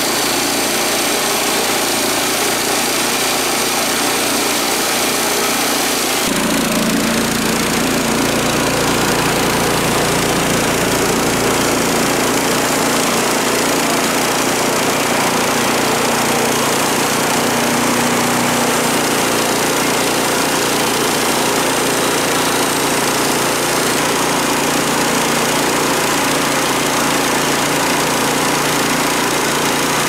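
Small engine of a portable band sawmill running steadily under load while the band blade saws through a log. About six seconds in the sound deepens and then holds steady.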